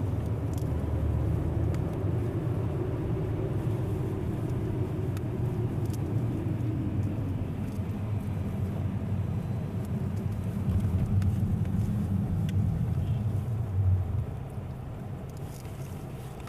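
Car driving on wet road, heard from inside the cabin: a steady low rumble of engine and tyres that quietens about fourteen seconds in.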